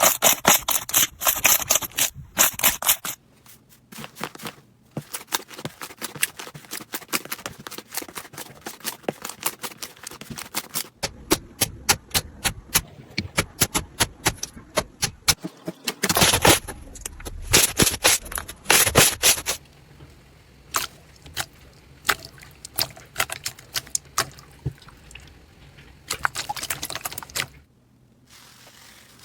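Slime being squeezed, poked and stretched by hand, making rapid, irregular clicking and popping. The sound changes several times as the clips cut from one slime to another.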